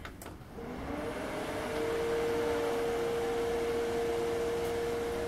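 Desktop PC powering up for the first time with a Zalman Reserator 3 Max water cooler fitted: its cooling fans spin up, a whine rising in pitch for about a second and a half, then settle into a steady hum with a rush of air.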